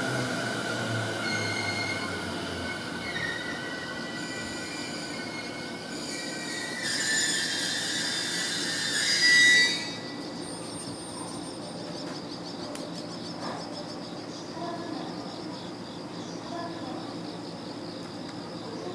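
Wheels of a freight train of tank wagons squealing as the last cars roll away over curving track: several high, steady squeal tones that grow loudest about nine seconds in and stop suddenly about ten seconds in, leaving only a fainter sound.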